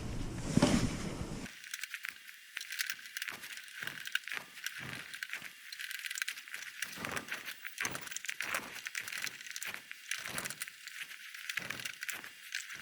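Irregular light clicks and rattles of a plastic dash bezel and its Phillips screws being handled and screwed back in by hand.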